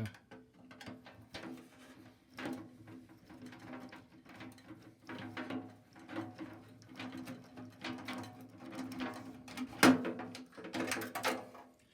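Metal parts of a microwave oven being pried and lifted out: irregular clicks, scrapes and knocks, with one sharper knock about ten seconds in, over a faint low steady hum.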